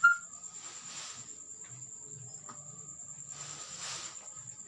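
Crickets trilling, a thin steady high pitched trill. A brief sharp sound comes right at the start, and two soft rustles about a second in and near the end.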